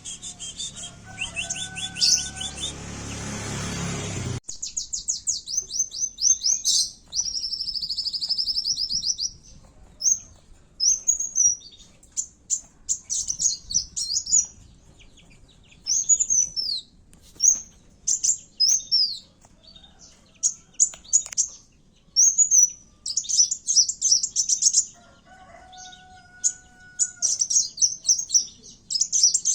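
Kowul sunbird (kolibri wulung) song: rapid, high-pitched trills and short chirped phrases in quick bursts with brief pauses between them, the excited fighting song used as a lure call. For the first few seconds a low rumbling noise lies under the chirps and stops abruptly.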